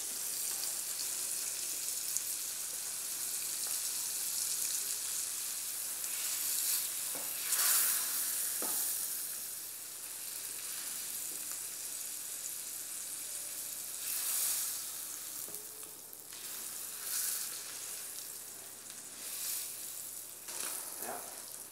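Pork loin roll sizzling steadily as it browns in butter in a stainless steel frying pan, with several louder surges of sizzle and scraping as it is turned with a wooden spoon.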